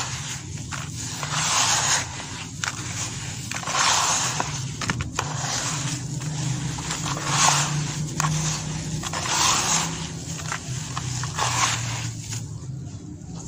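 Hands kneading and squeezing a damp sand-and-cement mix, giving a gritty scraping crunch that swells with each squeeze, about every two seconds.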